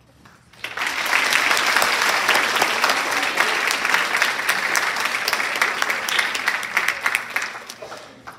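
Large audience applauding, starting about half a second in and fading out near the end.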